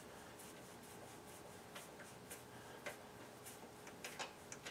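Very quiet: faint, scattered light clicks and rubbing as a gloved hand gropes among engine-bay parts, feeling for a motor-mount bolt.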